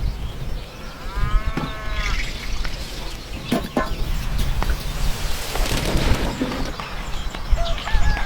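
Chickens calling: a short arching call about a second in, and a long drawn-out crow that starts near the end, over a steady low rumble.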